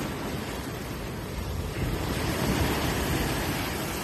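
Sea waves surging and washing against a rock ledge, a steady rush of surf that swells up about two seconds in and slowly eases.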